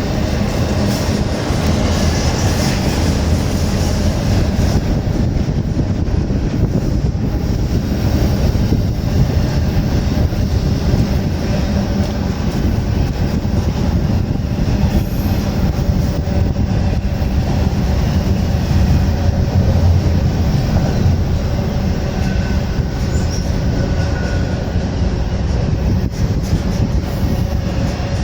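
Freight train rolling past: a steady, loud rumble of wheels on rails and rail cars, with no letup.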